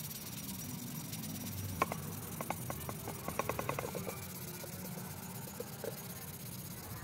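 Abrasive pad rubbing over the steel of an axe head under a steady hiss. About two seconds in, a series of short animal chirps starts and quickens to a rapid run, with two more chirps near the end.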